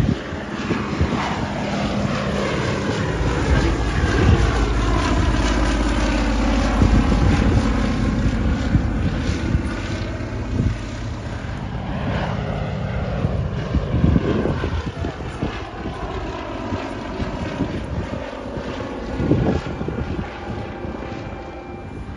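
Fairey Swordfish biplane's Bristol Pegasus nine-cylinder radial engine running as the aircraft flies past, its pitch falling as it passes in the first half of the clip, then slowly fading.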